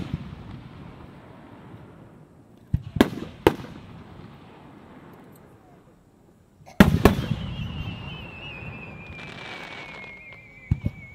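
Aerial firework shells bursting with sharp bangs and rumbling echoes: two close together about three seconds in, the loudest burst about seven seconds in, and two more near the end. After the loud burst a long warbling whistle slowly falls in pitch.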